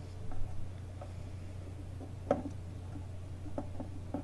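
Small clicks and taps of a screwdriver and small screws working on metal dial brackets inside a wooden radio cabinet, with one sharper click about two seconds in and a few more near the end. A steady low hum runs underneath.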